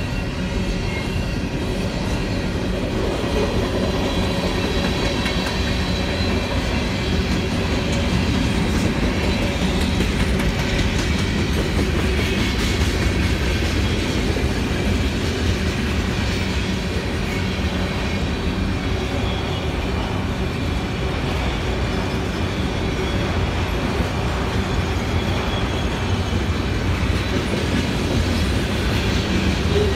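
Freight train cars rolling past a grade crossing at speed, a steady rumble of wheels on rail that keeps on without letting up.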